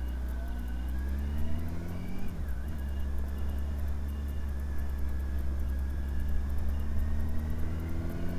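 Honda Hornet 900 motorcycle's inline-four engine running on the move, heard from the rider's seat over a low rumble. Its pitch rises until about two seconds in, drops, then climbs again near the end.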